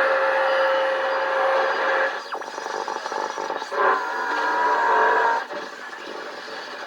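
Knight Kit R-100 shortwave receiver hissing with static and a steady heterodyne whistle, then sweeping whistles and a brief snatch of tonal station audio as the dial is tuned, dropping to quieter static near the end.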